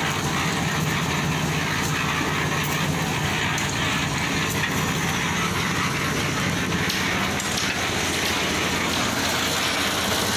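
Portable drum concrete mixer running steadily, its engine going without a break.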